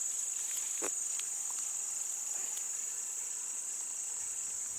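Steady high-pitched insect chorus, a continuous shrill trill, with a few faint clicks and a soft snap about a second in.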